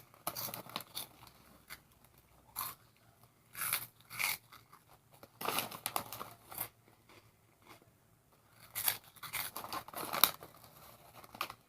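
Crunching and chewing of Hot Fries snack, in irregular bursts with short crackles between quiet gaps.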